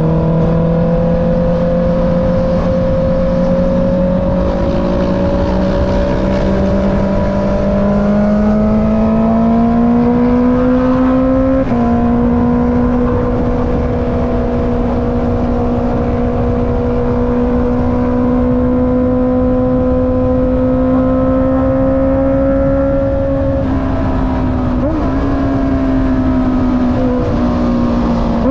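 Honda CB650R's inline-four engine through an Akrapovic exhaust, heard from the rider's seat: revs climb slowly under light throttle, drop with a gear change about twelve seconds in, then hold at a steady cruise, with wind rush underneath.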